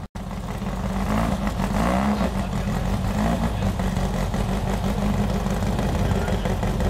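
Off-road sand buggy's engine running at low revs as the buggy creeps slowly forward, its pitch rising and falling a little with light throttle about two seconds in.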